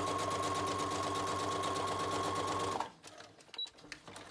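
Brother electric sewing machine stitching through layered paper journal pages at a steady, rapid pace, then stopping abruptly just under three seconds in. A few light clicks and paper handling follow.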